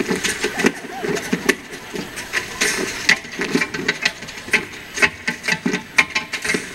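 Large audience making a murmur of voices, with many irregular sharp claps and knocks through it.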